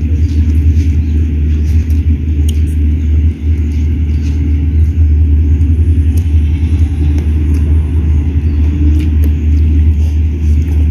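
Loud, steady low rumble with faint scattered clicks above it.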